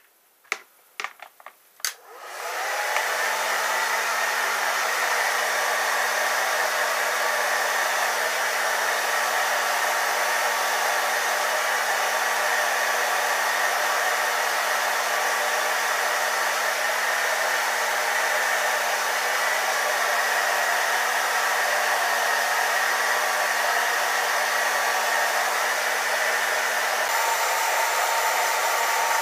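Hand-held hair dryer: a few clicks, then it is switched on about two seconds in and blows steadily with a low hum. Its tone changes slightly near the end.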